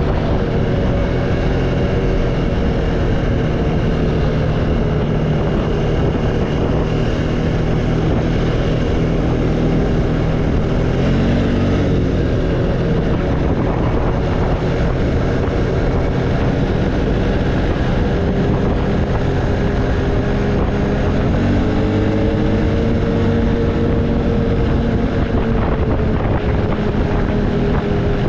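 ATV engine running under way, steady, with its pitch rising and falling as the throttle changes, once about eleven seconds in and again to a higher, held pitch about two-thirds of the way through.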